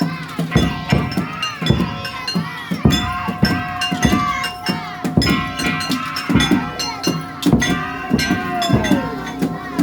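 Daijayama festival music played live: taiko drums beating under rapid clanging of small hand gongs, with a steady held high tone over it and voices calling along.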